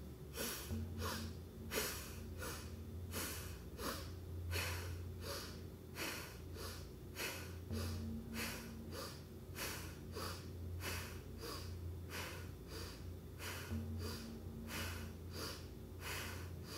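A woman's rapid, rhythmic forceful breathing, about two sharp breaths a second, in an energizing yoga breath exercise.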